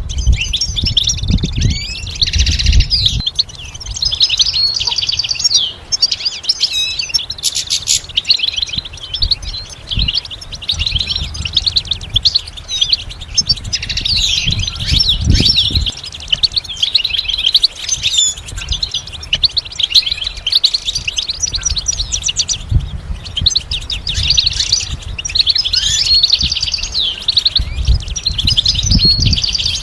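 European goldfinch singing: long runs of rapid twittering notes with short pauses between phrases, along with occasional low thumps.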